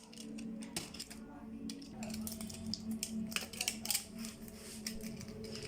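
Irregular small clicks and taps of tools and plastic and metal laptop parts being handled during disassembly, over a steady low hum.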